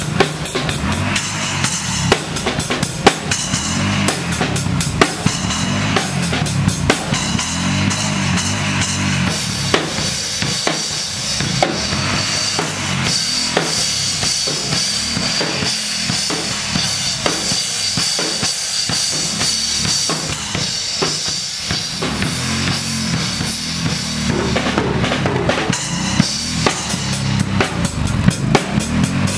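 Acoustic Mapex drum kit played with sticks in a continuous groove: bass drum, snare with rimshots, toms and cymbals.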